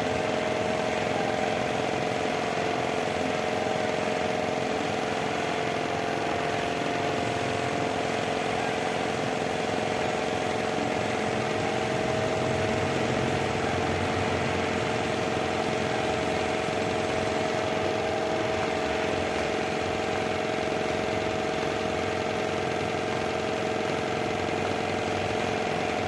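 Steady mechanical hum of a running motor, holding a few steady tones without change.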